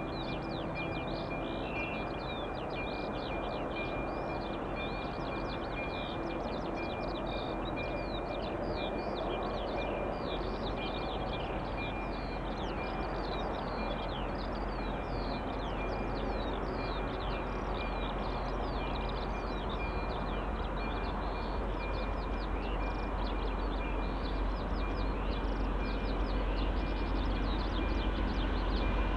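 Birds chirping with many short, quick falling calls over a low rumble that grows louder near the end as a diesel locomotive approaches, with a thin, steady high tone running under the birdsong.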